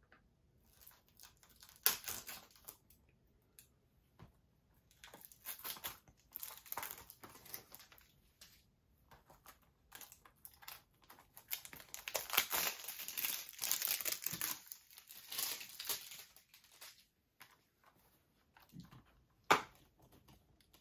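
Plastic shrink-wrap crinkling and tearing as it is pulled off a Blu-ray case, in irregular bursts. A single sharp click near the end.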